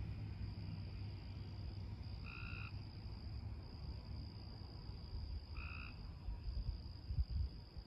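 Steady high drone of night insects, with two short, identical animal calls about three seconds apart.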